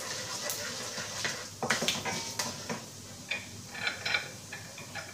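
Spatula scraping and stirring mustard seeds and lentils frying in oil in a nonstick wok, over a low steady sizzle. There are a few sharp scrapes about two seconds in, and lighter crackling after.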